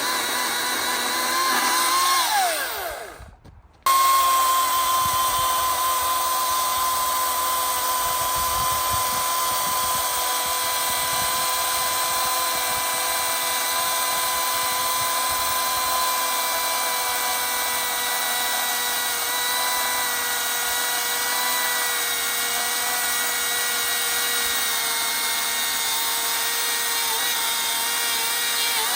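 Ryobi chainsaw with an Oregon 14-inch bar and S52 chain, running at full speed with a steady high whine. About two seconds in it is let off and winds down to a stop. About a second later it starts again at full speed and runs steadily.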